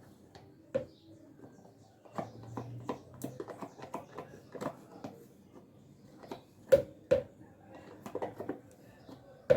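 Spoon scraping and tapping a can as sweetened condensed milk is emptied into a bowl: irregular clicks and knocks, the sharpest about a second in and twice close together about seven seconds in.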